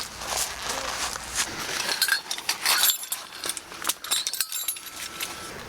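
Light clinks and knocks of kitchenware being handled, a few of them ringing briefly.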